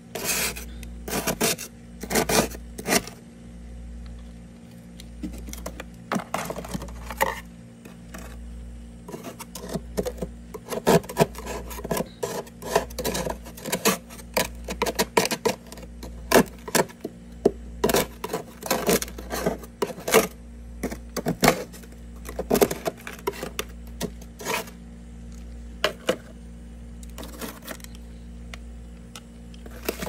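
A white plastic scraper scraping and scooping soft frost buildup off the inside walls and floor of a freezer, in irregular scraping strokes. The strokes come in quick runs through the middle, with sparser strokes at the beginning and end, over a steady low hum.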